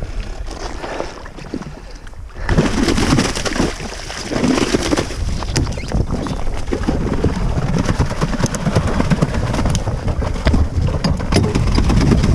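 Wind buffeting the microphone over water noise on a jet ski at sea, dipping briefly about two seconds in.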